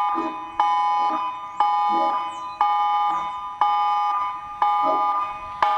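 Electronic emergency alert tone: a chord of a few steady high tones that sounds about once a second, each pulse starting sharply and fading before the next.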